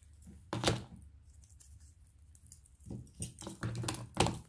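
Small decorations being handled and slid into place on a wooden base: a sharp knock about half a second in, then a run of short knocks and scrapes near the end.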